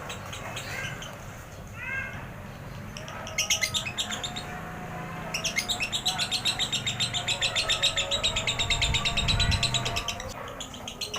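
Lovebird singing its 'ngekek' chatter: a few short chirps, a brief burst of rapid high notes, then a long fast run of repeated trilled notes lasting about five seconds.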